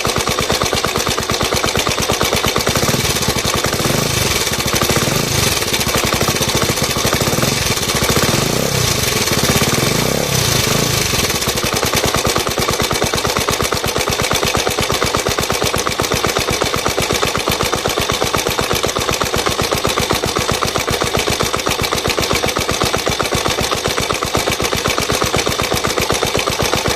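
Suzuki Djebel 125/200 single-cylinder four-stroke engine running with a fast, even ticking clatter from the top end, which the owner suspects is tappet noise from excess valve clearance. A deeper low rumble joins for several seconds from about three seconds in.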